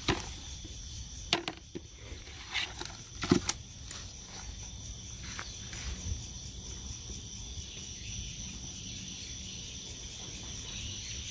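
Steady high-pitched chorus of night insects, crickets trilling. In the first half there are a few short rustles and snaps of someone moving through grass and brush.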